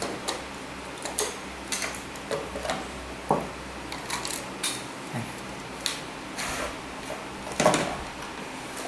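Plastic clicks and knocks from a Yamaha Nouvo SX instrument cluster being taken apart by hand: the case is pried open and the circuit board lifted out. The clicks are scattered and irregular, with a louder knock near the end.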